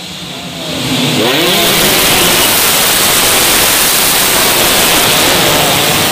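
A pack of 116cc underbone racing motorcycles passing close at racing speed. Engine pitch rises about a second in as the bikes accelerate, then the combined engine noise swells and stays loud and steady as the field goes by.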